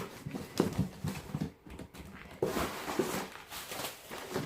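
Rustling of a deflated inflatable decoration's fabric being squashed and pushed into a cardboard box, with a few soft knocks scattered through.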